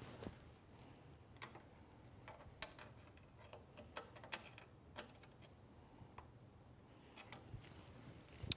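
Faint, scattered metal clicks of a combination wrench on a nut and steel bracket as a bolt is tightened, coming at irregular intervals.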